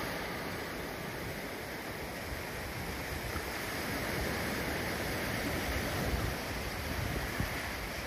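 Small sea waves breaking and washing up a sandy beach, a steady rustling wash of surf. Wind buffets the microphone in low rumbling gusts in the later seconds.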